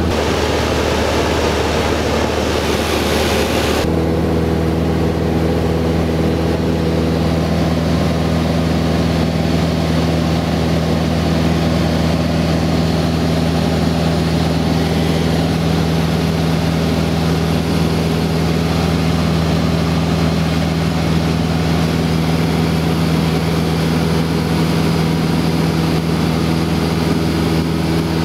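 Cessna 172's piston engine and propeller running steadily, heard from inside the cabin as an even drone. A layer of hiss over it cuts off about four seconds in.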